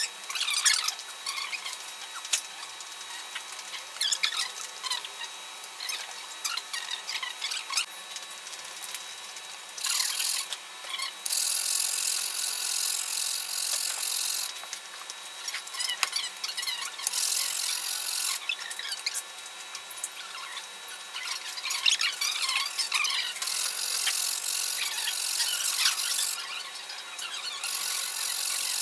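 Fret levelling on an electric guitar neck: a long sanding beam rubbed back and forth along the metal fret tops, making long, high-pitched scraping strokes with squeaks. In the first part there are scattered squeaks and small clicks as the fret tops are being marked with a paint marker.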